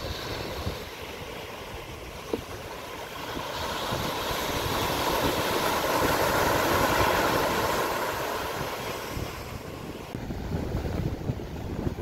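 Ocean surf: a wave breaks and washes up the sand, swelling to its loudest about halfway through and then dying away, with wind buffeting the microphone.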